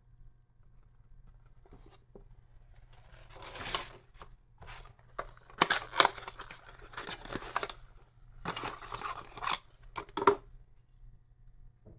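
Unboxing packaging being handled: several irregular bursts of rustling and scraping, with a few sharp clicks around the middle and near the end.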